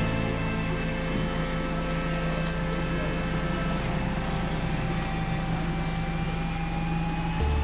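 Background music: sustained low chords held steadily, switching abruptly to a new chord near the end.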